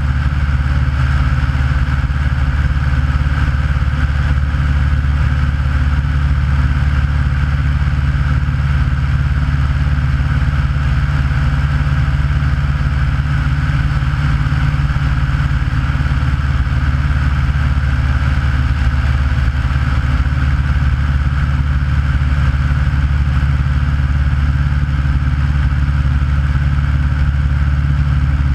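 Aeronca light plane's piston engine and propeller in flight, running steadily with an unchanging, loud drone.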